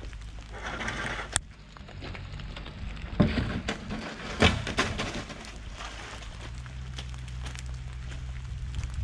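A black corrugated plastic culvert pipe is dragged across a muddy gravel driveway and knocks on the ground, with two loud thumps about three and four and a half seconds in. Under it the diesel engine of an IHI mini excavator runs steadily with a low hum.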